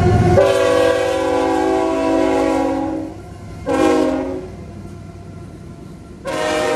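GE ET44AC freight locomotive horn sounding over the low rumble of the passing train: a long blast of about two and a half seconds, a short blast about three and a half seconds in, and another long blast starting near the end, the long-short-long ending of a grade-crossing signal.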